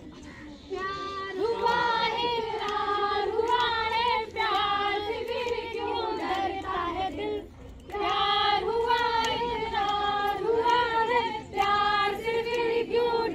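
A group of young women singing together without instruments, in long held phrases, with a short pause a little past halfway through.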